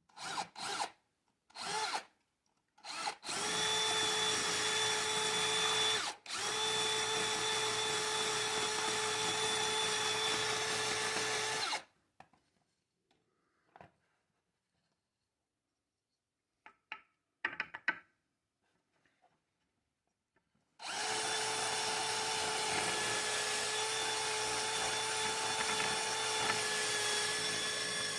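Electric drill started in a few short trigger bursts, then held at a steady whine for about nine seconds with a brief stop partway. After a pause broken by a few light clicks, it runs steadily again for the last seven seconds.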